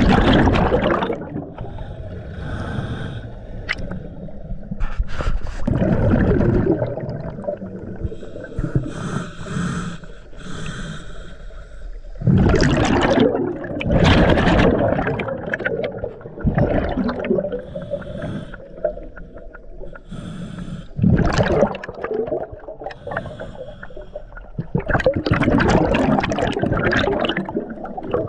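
Scuba diver breathing through a regulator underwater: hissing inhalations alternating with rumbling bursts of exhaled bubbles, about five breaths.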